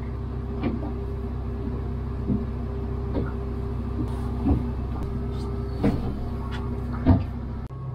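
Steady low mechanical hum inside a small boat's cabin, broken by short knocks every second or two.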